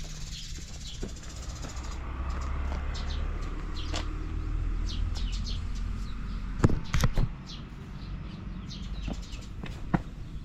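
Suzuki Volty's 250 cc air-cooled single-cylinder engine running at a low steady rumble, louder for the first part and then easing off, with a few sharp knocks about two-thirds of the way in. Birds chirp throughout.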